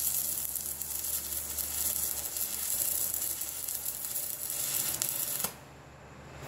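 Electric arc welding: the arc's steady crackling sizzle as weld is laid to fill a wide gap around the bottom of a steel pin sleeve. The arc cuts off suddenly about five and a half seconds in.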